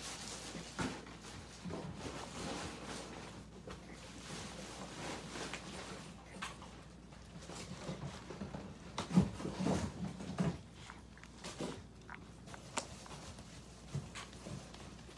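Miniature pinscher puppies eating soft food from a dish, with small chewing and biting sounds and paws pattering about, and a louder flurry of noises around nine to ten seconds in.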